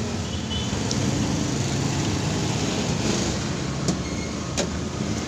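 Steady background noise, like road traffic, with a couple of short light clicks about four and four and a half seconds in.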